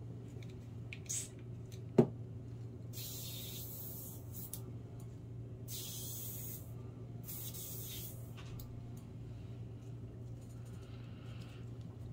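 Nail airbrush (Airgel/Airtex system) letting off three short hissing sprays of air and paint, each about a second long. A sharp tap about two seconds in is the loudest sound, and a low steady hum runs beneath.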